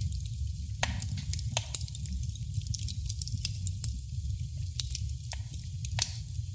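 Wood fire crackling in a fireplace: irregular sharp pops and snaps over a steady low rumble, with louder pops about a second in and near the end.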